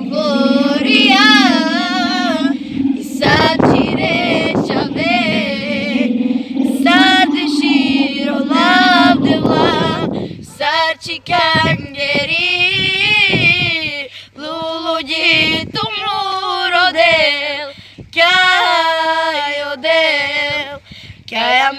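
Women's voices singing a high, wavering melody with heavy vibrato over a steady low drone. The drone stops about nine seconds in, and the voices carry on alone in short phrases.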